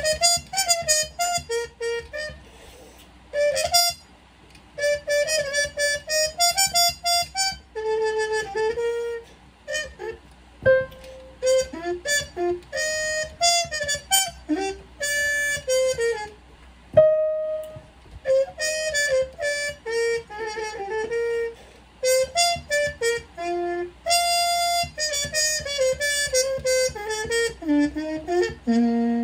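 Solo trumpet playing a melody, one note at a time, in phrases with several short breaks between them.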